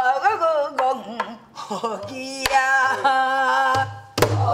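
Woman singing a Namdo folk song in pansori style, holding long notes with a wide vibrato. A buk barrel drum accompanies with a few sharp rim strokes and low head thuds.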